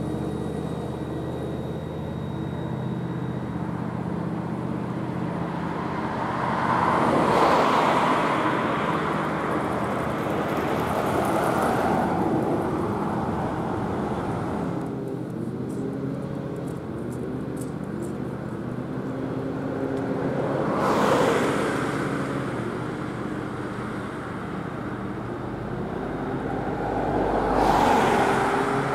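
Street traffic with several steady engine tones underneath, rising three times as vehicles pass close by. Near the end a Škoda 26T tram comes up to the stop.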